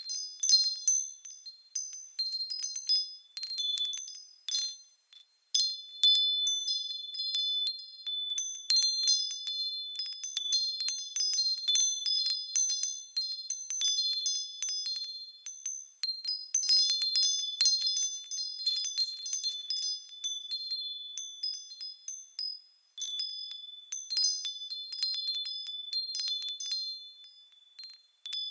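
Light wind chimes tinkling: high-pitched metal tones struck in irregular clusters and ringing away, with a few short pauses.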